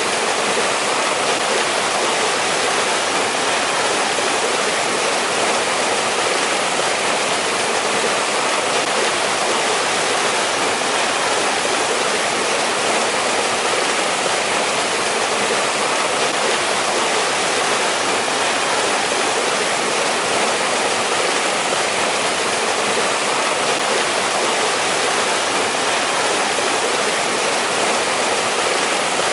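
Mountain stream in winter, water rushing and splashing over rocks in a steady, unbroken flow.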